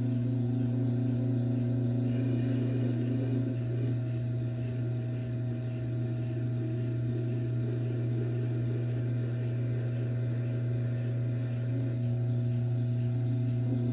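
Tormek T4 sharpener's motor running with a steady hum while a knife edge is stropped on its leather honing wheel.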